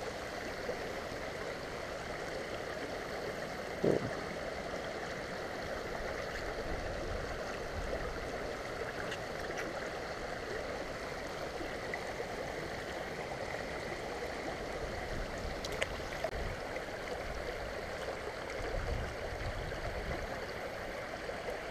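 Creek water running steadily over a shallow riffle, with a single short knock about four seconds in.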